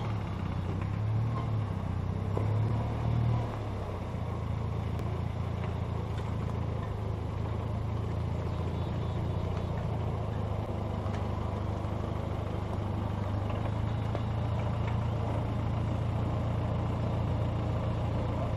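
Small tractor engine running steadily at low speed as it backs a boat trailer, a little louder and uneven for the first few seconds before settling.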